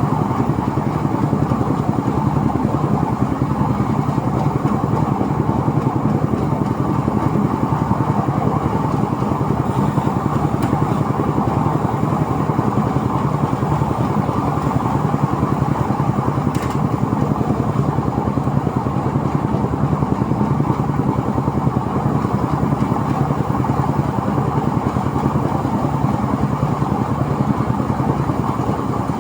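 Motor-driven rice thresher running steadily, its small engine and threshing drum making a loud, unbroken mechanical din.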